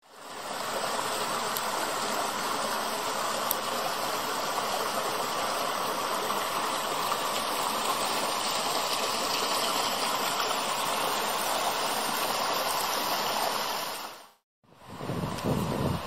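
Creek water running over and between boulders, a steady rushing. It cuts off suddenly about fourteen seconds in, and a lower, uneven rumbling noise follows near the end.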